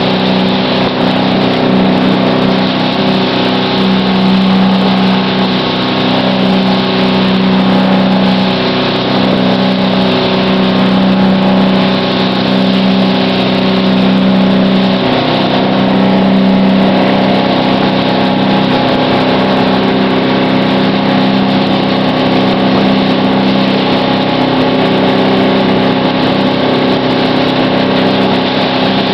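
Ski boat's engine running steadily at towing speed, a constant drone, over the hiss of spray kicked up by a barefoot water skier on the water.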